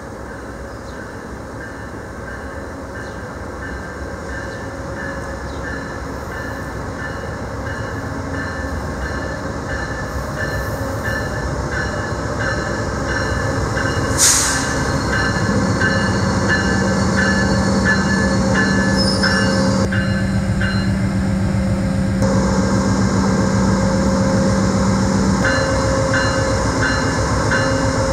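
A VIA Rail GE P42DC diesel locomotive hauling a passenger train into the station, growing steadily louder as it approaches, with a bell ringing about twice a second. About halfway through there is a brief sharp high-pitched sound, and a steady low tone runs under the train for about ten seconds after it.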